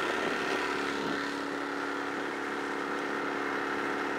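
A 1956 Johnson 30 hp two-stroke outboard running steadily at full throttle, over the hiss of the wake along the hull. The motor runs well but the boat will not plane, which the owner blames on a worn propeller.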